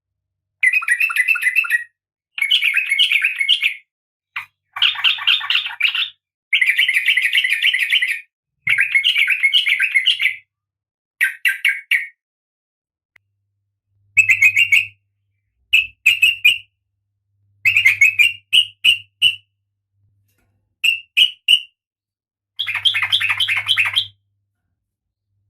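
Female Oriental magpie-robin (kacer) calling: a series of rapid chattering phrases of about one to two seconds each, separated by short silences. The phrases grow shorter and more clipped after the middle.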